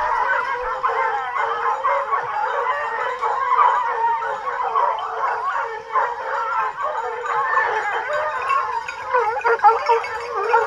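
A pack of hunting hounds in full cry, many dogs baying and howling at once in overlapping voices. This is the sound of hounds giving tongue as they run a scent during the chase.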